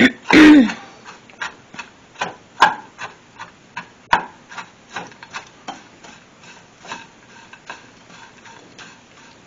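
Black plastic spatula scraping and stirring buttered crushed crackers in a frying pan, in short strokes about twice a second, with a few sharper knocks against the pan. A brief loud sound that falls in pitch comes about half a second in.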